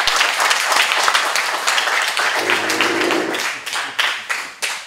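A room of people applauding, the clapping thinning out and dying away near the end.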